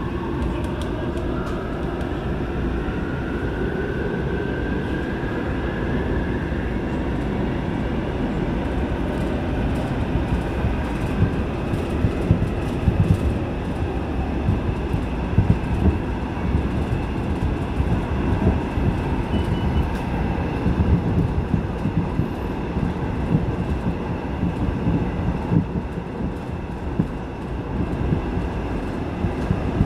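Seoul Subway Line 8 train running through a tunnel, heard from inside the carriage: a motor whine rises in pitch over the first several seconds as the train picks up speed, under a steady wheel-on-rail rumble. From about ten seconds in, scattered clicks and knocks come through the rumble.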